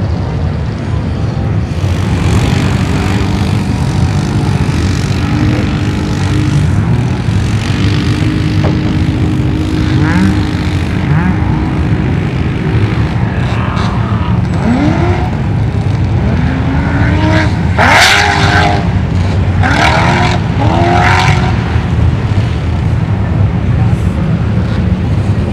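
Off-road drag vehicles' engines on a sand strip: a steady low engine rumble throughout. From about ten seconds in, an engine revs up in repeated rising sweeps as a vehicle accelerates through its gears, loudest about two-thirds of the way through.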